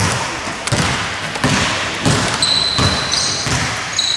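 Basketball being dribbled on a court, a thud about every half second to second, with high sneaker squeaks in the second half.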